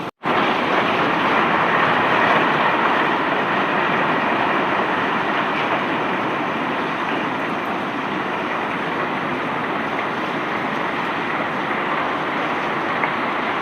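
Loose bulk rock cargo, crushed stone, pouring out of a barge as it is unloaded, making a steady rushing, rattling noise. It cuts out for an instant just after the start, then comes back slightly louder and eases off a little.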